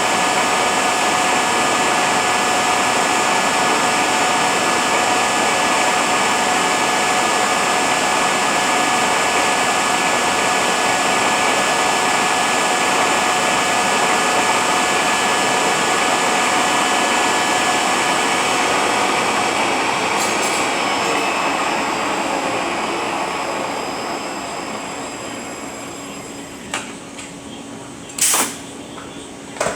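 Rebuilt Eaton Fuller RTLO-18918B 18-speed truck transmission running on a dyno test stand: a steady loud mechanical whir with a few steady whining tones. About twenty seconds in it spins down and fades, and a few sharp clanks follow near the end.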